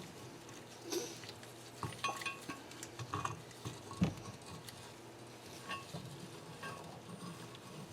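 Light metallic clicks and clinks, about seven or eight scattered through, the sharpest about four seconds in, from tools and valve parts being handled while the valve springs and keepers are assembled on a cylinder head.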